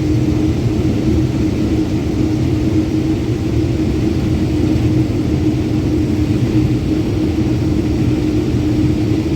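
Combine running while it unloads corn through its unloading auger: a loud, steady machine drone with one strong held note over a low rumble.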